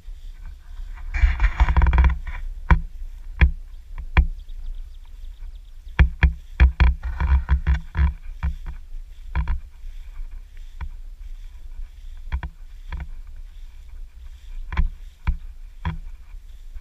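Footsteps swishing and thumping through tall grass, irregular and heaviest in two spells, over a steady wind rumble on the microphone.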